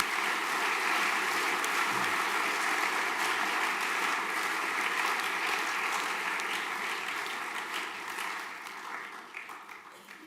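Audience of students applauding: a steady wash of many hands clapping that fades away over the last couple of seconds.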